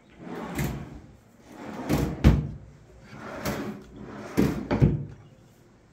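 Wooden computer-table drawers being slid open and pushed shut several times, each slide swelling and ending in a sharp knock.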